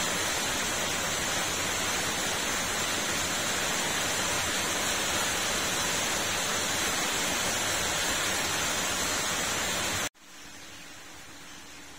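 A steady, loud hiss, even across all pitches with no distinct events in it. It cuts off abruptly about ten seconds in, leaving a much fainter hiss.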